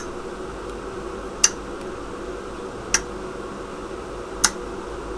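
Relays on a PLC board clicking four times at an even pace, about one click every second and a half, as the running test program cycles, over a steady low electrical hum.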